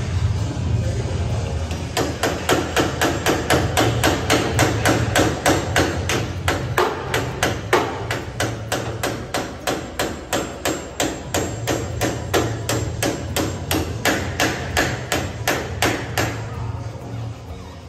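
Hammer striking the arm of a tripod turnstile at its hub: a steady run of blows, about three a second, starting about two seconds in and stopping near the end.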